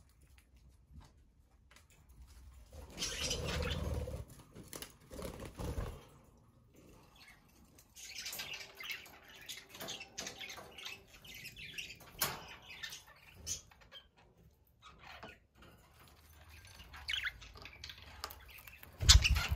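Pet budgerigars chirping in short, irregular calls, with rustling and clicking between them. A sharp thump comes near the end.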